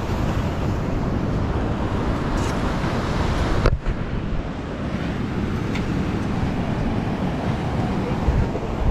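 Wind buffeting the microphone, a steady noisy rush strongest in the low end, with surf washing in underneath. It cuts out for a moment about four seconds in.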